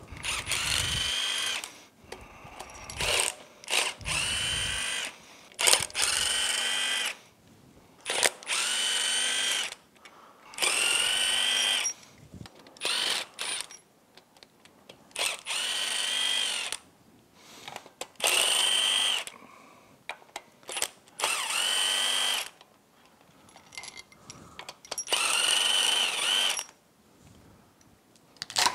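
Cordless power driver spinning out bolts on a Yamaha F225 outboard's cylinder head, one after another in the loosening sequence. Each is a run of about a second with a whine that rises and then falls, about nine of them with short pauses between.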